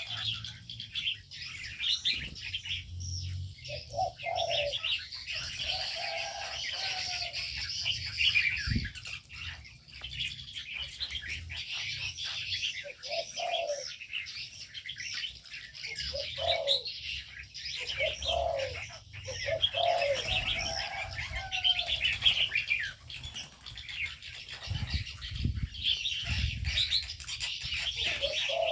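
Aviary birds: spotted doves cooing in short low phrases, repeated many times, over the constant high chirping of many small birds, with bursts of wing flapping.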